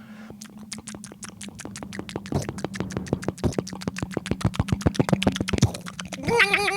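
Electronic spooky sound effects: rapid, evenly spaced clicking, about seven clicks a second, over a low steady hum. About six seconds in, a warbling synthesizer tone with a wide vibrato comes in and drifts slightly upward.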